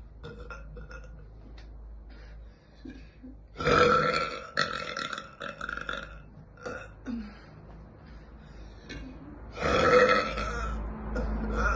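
A young woman's burps: two long, loud belches. The first starts about three and a half seconds in and runs for over two seconds in several pushes; the second starts near the ten-second mark and runs on.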